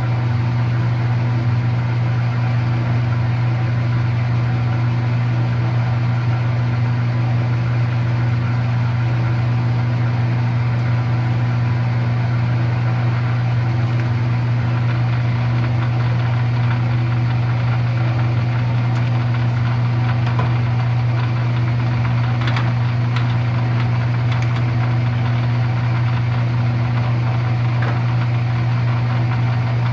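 Metal lathe running slowly in back gear while a 39/64 in. drill bit cuts through a thin bushing, giving a steady hum with a few faint ticks.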